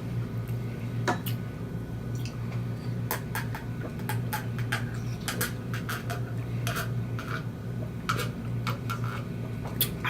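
Close-miked eating of snow crab legs: irregular sharp clicks and snaps of shell and mouth, over a steady low hum.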